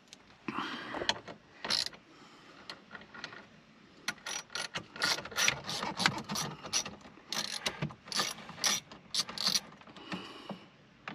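Small socket ratchet with a 7mm socket, its pawl clicking in quick runs as a dash bolt is turned, with some handling rattle of the tool first.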